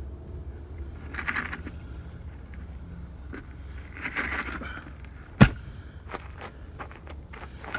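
Parts of a scrap pool heater being worked apart by hand: two short scrapes, then one sharp loud knock about five and a half seconds in, followed by lighter clicks and taps.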